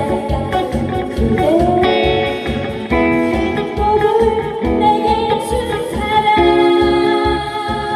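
A woman singing a song over a guitar-led backing track with a steady beat.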